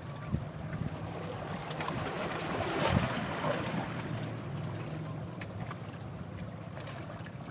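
Sea waves and wind buffeting the microphone, with a steady low hum underneath; the noise swells briefly about three seconds in.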